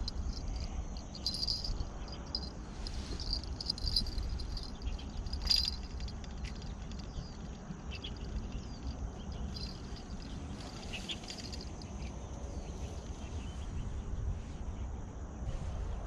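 Insects chirping in the riverside vegetation: a steady high trill with louder pulses of chirping now and then, over a low rumble.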